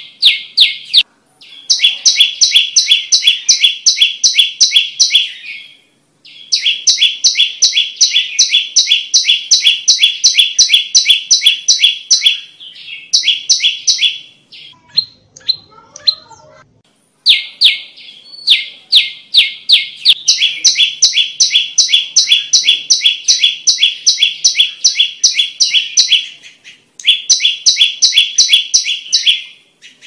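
Common tailorbird singing: long bouts of loud, rapidly repeated chirps, about four a second, broken by short pauses, with a quieter gap of a few seconds near the middle.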